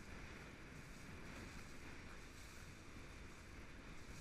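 Small motorboat under way over choppy water: a faint, steady rush of wind and water noise.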